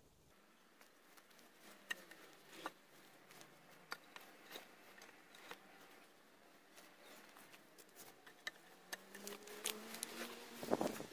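Faint, scattered clicks and taps, irregular and a few per second, with a short low pitched drone near the end.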